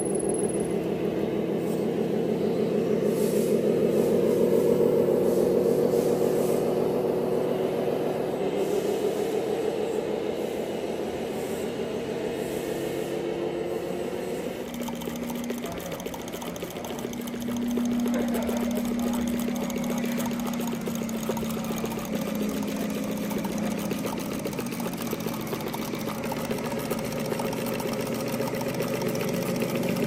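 Radio-controlled model vehicle running with a steady, pulsing engine-like sound. About halfway through it changes to a lower, steadier hum, which grows louder a few seconds later.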